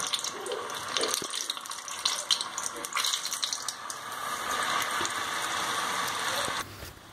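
Hot oil sizzling and crackling as batter-coated green chillies (mirchi bajji) deep-fry in a pan, a steady hiss full of small pops that cuts off sharply near the end.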